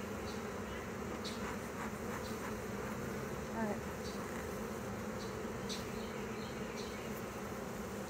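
Steady buzzing hum of a large honey bee swarm, many bees in the air at once as the swarm is shaken and brushed off a tree into a hive box.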